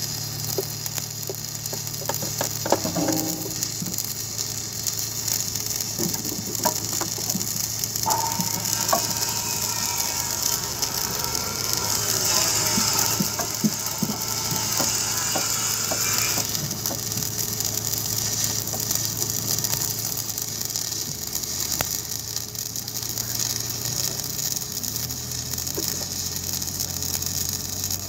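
Stick (SMAW) welding arc burning on a 6013 electrode at about 150 amps: a continuous crackling and sputtering, louder for a few seconds in the middle, over a steady low hum.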